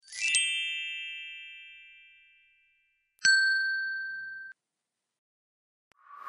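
Subscribe-button animation sound effects. A shimmering chime rings out and fades over about two seconds. About three seconds in comes a click with a bright bell ding, which stops short after a little over a second.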